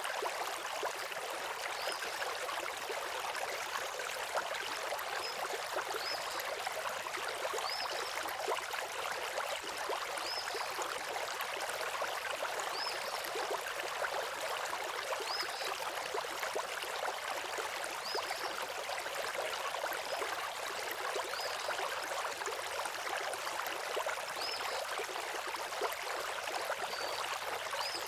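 Steady rush of a flowing stream, with a bird's short high chirp repeating about every two and a half seconds.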